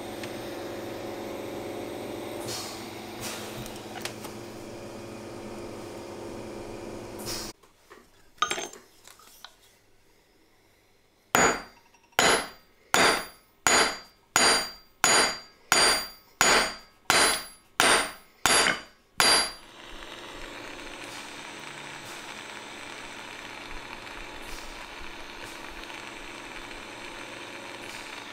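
Jeweller's gas torch hissing steadily, then cutting off about seven seconds in. After a short pause, about a dozen evenly spaced metal hammer blows ring on steel, roughly one every 0.7 s, struck at the gold bezel seated in a steel plate. The torch hiss starts again after the blows.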